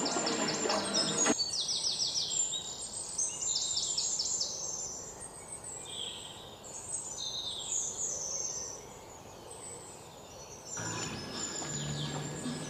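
Birds chirping, with runs of quick, high repeated notes. A fuller, lower background sound cuts out early and comes back near the end.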